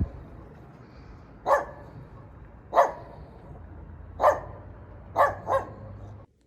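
A dog barking: about six short barks at uneven intervals, the last two in quick succession, over a steady low hum. The sound cuts off suddenly near the end.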